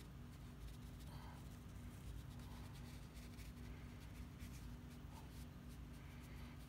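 Faint scratching of a stiff bristle brush dabbing and rubbing watercolour paint onto paper, over a low steady hum.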